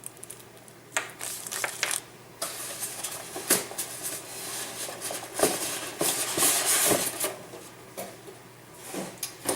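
Packaging of a new meat grinder being handled and unpacked: crinkling and rustling of wrapping, busiest in the middle, with scattered clicks and knocks of parts being handled and set down.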